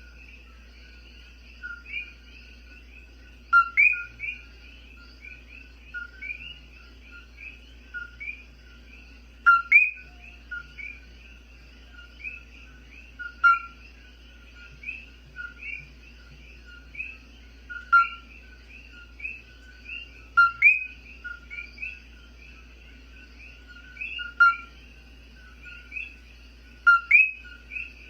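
A dense night chorus of many common coquí frogs calling. One close individual gives a loud two-note call about every three to four seconds over the steady chirping of the rest.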